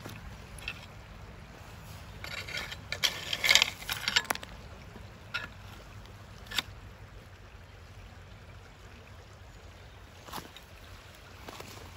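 Footsteps crunching and clattering on loose creek-bed gravel and cobbles, with a quick run of steps about two to four seconds in and a few single steps after.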